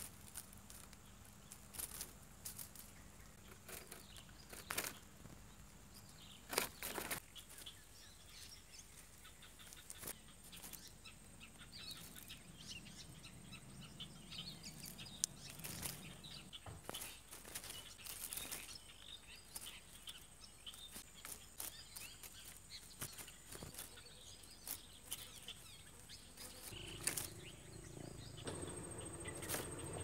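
Faint rustling and crackling with scattered sharp clicks, likely dry nest grass being disturbed close to the microphone, and a few faint high bird chirps in the middle. A low rumble comes in near the end.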